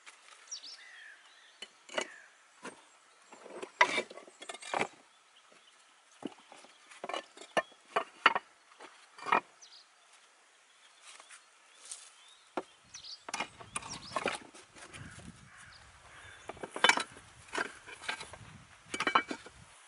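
Scattered sharp clicks and knocks of hands handling things on the ground, some in quick clusters, with a low rumble in the second half. A faint bird call near the start.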